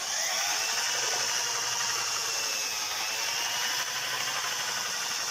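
Corded electric drill with a paddle mixer attachment running steadily, stirring tint into a bucket of paint.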